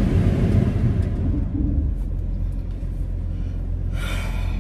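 Low, steady rumble of a car heard from inside its cabin, strongest in the first couple of seconds.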